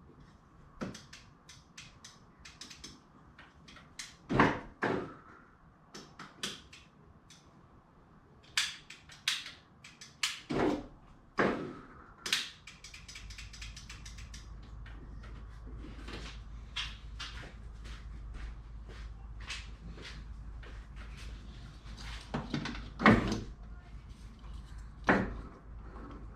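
Scattered clicks and knocks of hands working at a car door, plugging a power window switch connector back in and handling the panel. A low steady hum comes in about halfway through.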